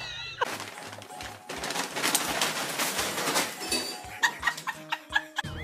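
Music with a beat of low thumps at roughly even spacing, and a few pitched tones near the end.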